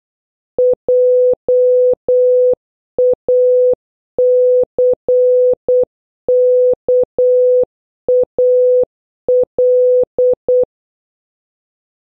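Morse code played as a steady single-pitch beep, keyed on and off in short dits and long dahs that spell the word JACKAL (.--- .- -.-. -.- .- .-..).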